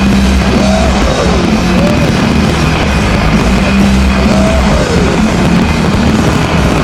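Loud music with held bass notes that change about every second, under a dense noisy wash, with a few brief gliding tones above it.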